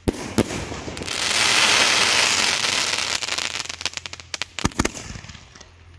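Elephant brand 3 x 10 'Mighty Setout' multi-shot aerial firework firing. Sharp bangs of shells bursting at the start, a loud dense crackling from about one to three and a half seconds in, then another quick cluster of bangs a little before the end that trails off.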